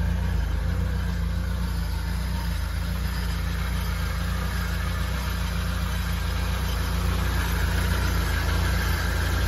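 Engine of a small Suzuki 650 kg truck idling steadily.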